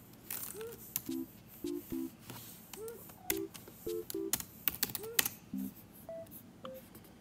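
Clicking of laptop keyboard keys being typed on, over light background music: a short loop of brief two-note chords and little rising notes that repeats about every two seconds.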